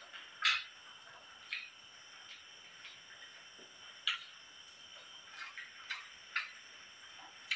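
Night insects such as crickets chirring steadily, with about eight short sharp clicks scattered among them. The loudest click comes about half a second in.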